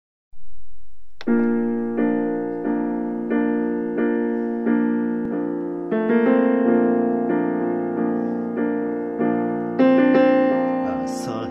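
Piano playing a slow introduction of repeated chords, struck about once every three-quarters of a second, with the harmony changing a couple of times.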